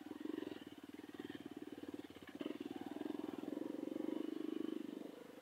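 Off-road motorcycle engine idling with a fast, even pulse; it grows louder about three seconds in and drops back near the end.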